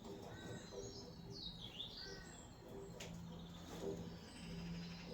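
Faint birdsong: short chirps repeating, with one swooping call that falls and rises. There is a single sharp click about three seconds in, and a low hum starts at about the same time.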